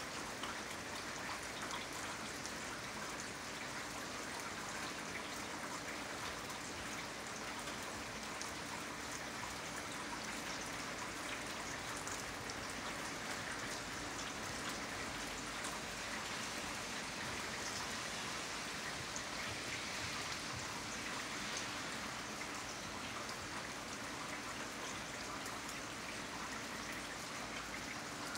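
Steady rain falling, a constant hiss with the patter of individual drops.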